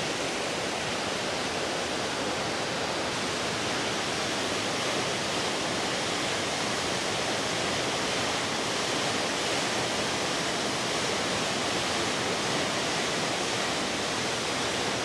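Steady rushing of running water, an even, unbroken hiss with no gusts or changes.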